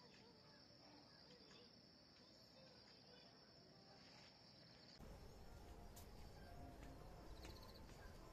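Faint, steady high-pitched trill of insects in forest. It cuts off abruptly about five seconds in, giving way to a louder low rumble with a few faint clicks.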